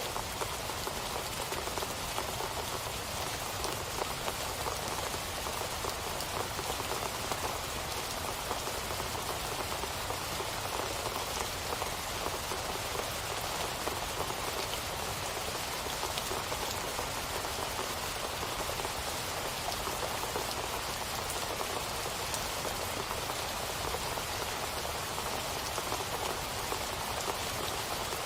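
Steady rain falling, a dense even patter of countless drops on a surface with no breaks or distinct events.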